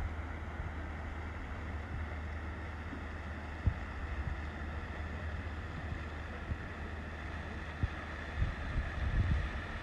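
Wind rumbling on a phone microphone over a steady outdoor hiss, with two brief soft knocks.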